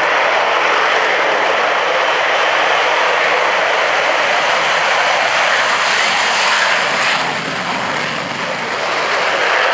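Avro Vulcan's four Olympus turbojets running at take-off power as the bomber rolls down the runway and rotates, a loud steady jet roar that dips briefly about seven seconds in.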